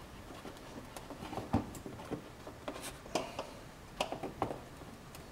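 Faint, irregular clicks and scrapes of a flathead screwdriver working a fastener in a car's plastic wheel-well liner.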